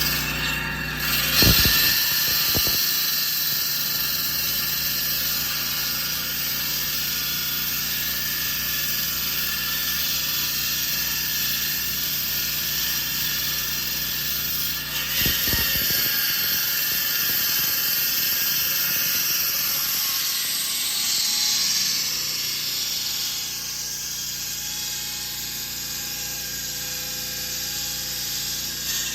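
Handheld concrete saw cutting concrete: a steady, high-pitched cutting noise, broken by short knocks about a second and a half in and again around fifteen seconds.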